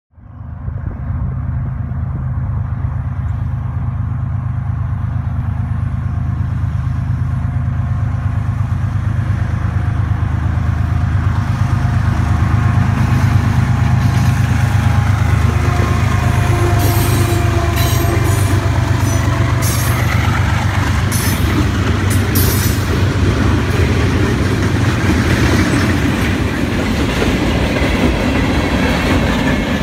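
CN freight train passing: diesel locomotives' steady low engine drone swelling as they come by, with sharp clicks in the middle, then the freight cars rolling past with wheel clatter as the engine sound dies away near the end.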